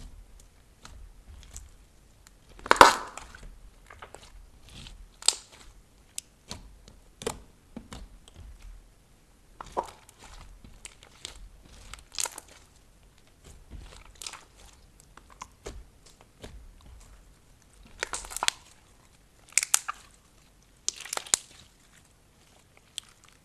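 Slime being kneaded and pressed by hand, giving irregular sticky clicks and crackles. A few louder crackling bursts stand out, the loudest about three seconds in and three more close together late on.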